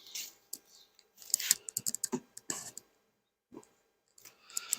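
Irregular clicks, knocks and short scrapes of wooden beehive frames being handled and set into a hive box.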